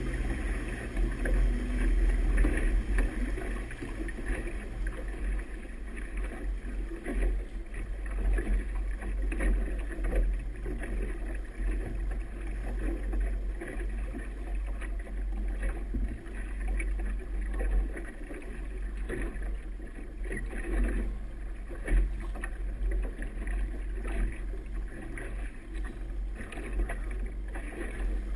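Race committee boat motoring slowly: a low, steady rumble with water churning and splashing in its wake.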